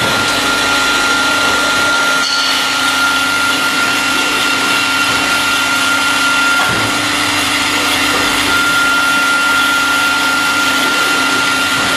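CNC cutting machine running: a loud, steady mechanical noise with a constant high-pitched whine.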